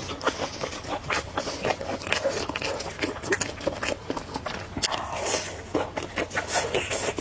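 Close-miked eating sounds: a person chewing and slurping noodles, with many irregular wet mouth clicks and a few brief slurps.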